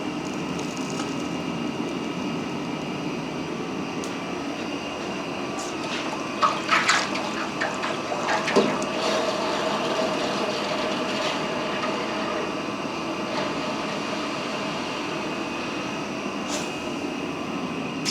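Water churning and hissing in a small quench tank as red-hot 1045 steel balls are quenched, the water running hot. There are a few sharp knocks about six to nine seconds in.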